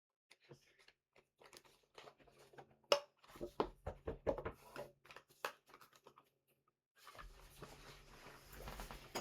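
Plastic cube packaging being handled and opened: a run of irregular small clicks and crackles, with a steady hiss setting in near the end.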